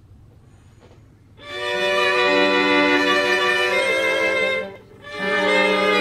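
String quartet of two violins, viola and cello begins playing about a second and a half in: sustained bowed chords, with a short break near the five-second mark before the next chord enters.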